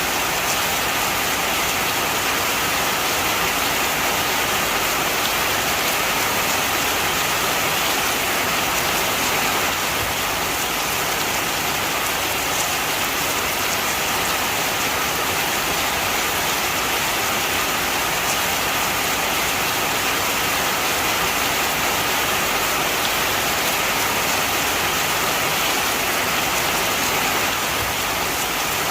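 Steady heavy rain: a dense, even hiss of rain falling on surfaces, with faint individual drops ticking through it.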